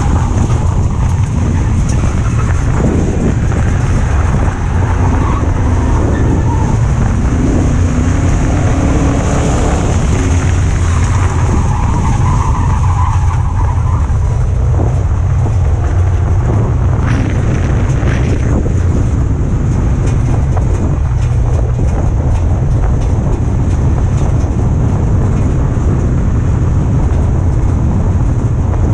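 Ford Crown Victoria dirt-track race car's V8 engine running hard at racing speed, heard from inside the caged cockpit as a loud, steady, low drone.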